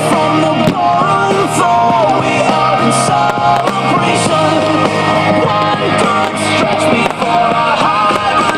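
Rock music with a sung melody, guitar and drum hits, playing loud and steady.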